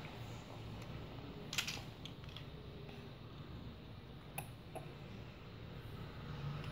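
Hard plastic LEGO Duplo pieces clicking and knocking together a handful of times as a baby handles them, the sharpest click about a second and a half in, over a faint low hum.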